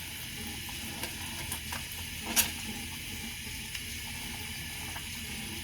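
Steady hiss of water running from a tap while a bar of glycerin soap is wetted and lathered in the hands, with a few faint clicks and one sharper click a little before the middle.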